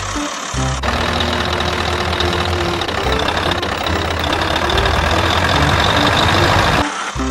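Truck engine sound running steadily, laid over a loaded toy dump truck driving through sand. It comes in about a second in and cuts off suddenly near the end.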